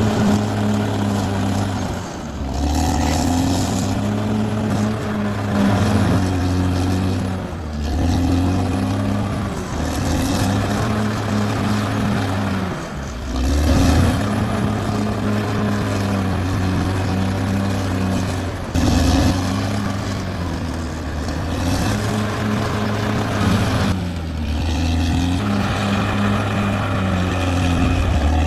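Caterpillar D6R XL bulldozer's diesel engine running under work, its note dipping and recovering every five or six seconds as the load changes.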